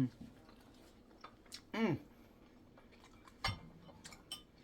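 A metal spoon clicking and knocking against a bowl while soup is eaten, with the sharpest knock about three and a half seconds in. About two seconds in comes one short hummed "mmm" of someone enjoying the food.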